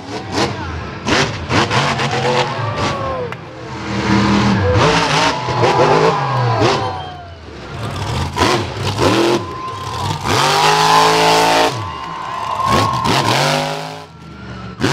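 Monster truck engines revving hard, the pitch climbing and dropping again and again, with a few sharp bangs.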